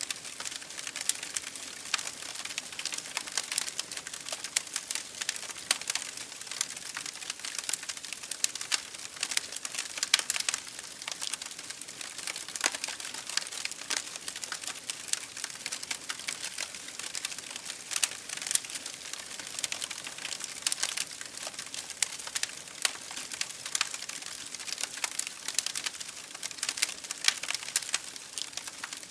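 Wood fire burning in an open fireplace, crackling steadily with many irregular sharp pops and snaps over a soft hiss.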